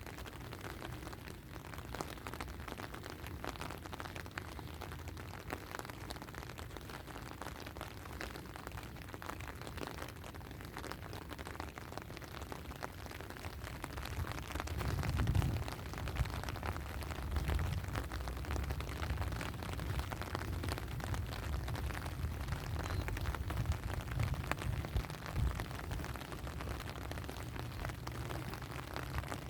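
Steady rain, many small drops ticking over an even hiss, with a low rumble that grows louder about halfway through.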